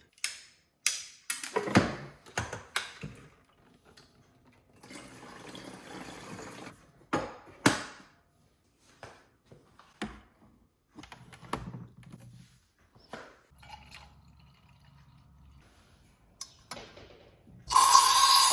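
Kitchen handling while rinsing and soaking lentils: a series of knocks and clinks of bowls and utensils, water being poured for about two seconds, and a loud rush of running water starting near the end.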